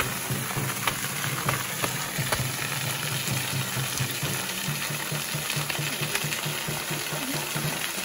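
A thin waterfall falling from a height and splashing onto wet rock: a steady hiss of falling water with scattered small splash ticks.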